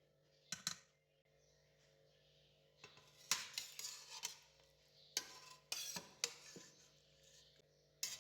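Metal kitchen utensils clinking and knocking against dishes and a pot: two quick clinks, then a busy run of knocks and scrapes, and a last clink near the end.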